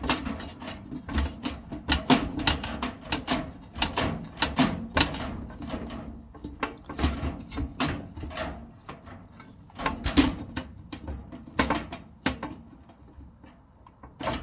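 A screw being forced into the sheet-metal panels of a tool box. It makes a run of irregular clicks and knocks, with some dull thumps as the parts are pushed hard.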